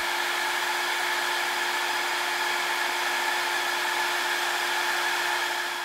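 Conair InfinitiPro handheld hair dryer running at full speed: a steady whine over the rush of air, loud enough to read about 93 decibels on a noise meter at the nozzle.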